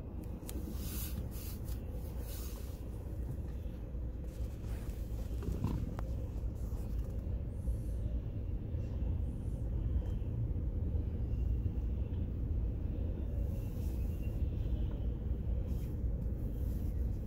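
Intermodal freight train rolling past, double-stacked container well cars and truck trailers on flatcars, giving a steady low rumble of wheels on rail with a few faint clicks, a little louder from about six seconds in.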